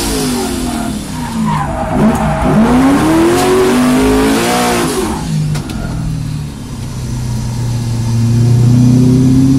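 Drift car's engine heard from inside the cabin, its revs swinging up and down during a slide while the tyres screech. After about five seconds the screech fades and the engine revs rise steadily, loudest near the end.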